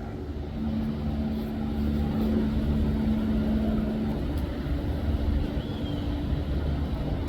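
A steady low engine rumble, with a held hum over it that fades out about halfway through.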